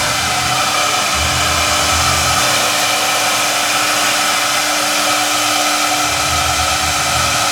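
Large CNC foam router running with its high-power spindle: a steady whirring hiss with a constant hum. A lower rumble swells twice, about a second in and again near the end.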